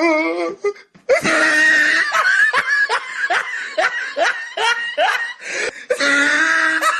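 A person laughing hard in quick repeated bursts, about three a second, starting about a second in.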